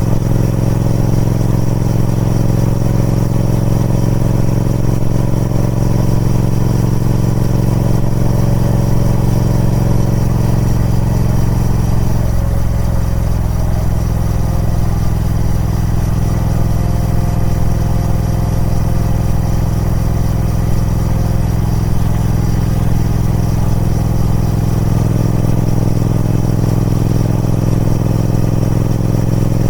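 Triumph Speed Twin 1200's 1200cc parallel-twin engine running steadily through its stock exhaust, holding an even pitch with small shifts about twelve seconds in and again near the end.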